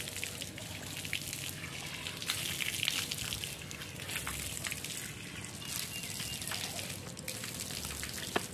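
Water running from an outdoor pipe tap and splashing onto the concrete drain below as people wash their hands and faces under the stream. A single sharp click comes near the end.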